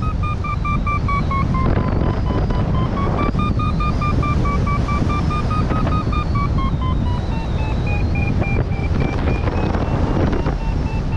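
Paragliding variometer (XC Tracer Maxx) beeping in a fast string of short high beeps whose pitch steps up and down with the climb rate, signalling the glider is climbing. Heavy wind rush on the microphone runs underneath.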